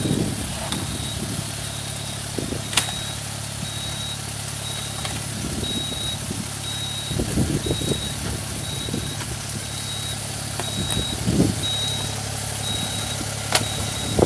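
A machine's engine running steadily, with a high electronic warning beep repeating a little more than once a second. There are a few low rumbles and two sharp clicks.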